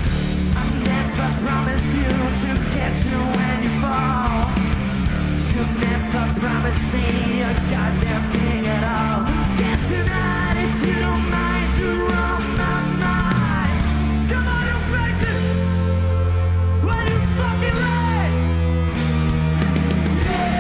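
A rock band playing live at full volume, with drums, bass and guitars, and some singing.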